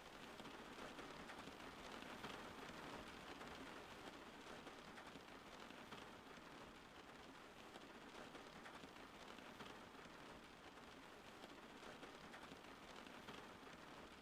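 Soft, steady rain falling, an even hiss of many fine drops with no thunder.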